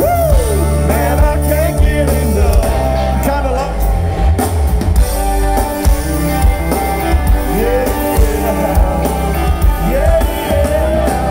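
Live country rock band playing loudly through a concert PA: drum kit, bass and electric guitar, with some singing over it.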